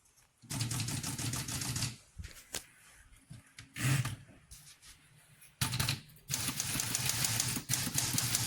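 Typewriter being typed on in two fast runs of key strikes, the second longer, with a single louder knock about four seconds in. The machine works after repair.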